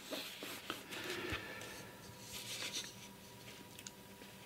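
Faint paper rustling with a few soft clicks close to a studio microphone, over a faint steady hum.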